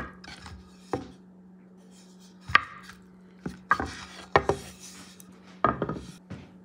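Small wooden board knocked and pressed down onto a wooden cutting board to smash a fried green plantain slice flat: a series of sharp wooden knocks, unevenly spaced, some in quick pairs.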